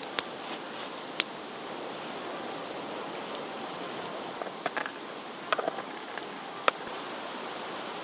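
Wood campfire crackling: a steady hiss broken by a handful of sharp, irregular pops.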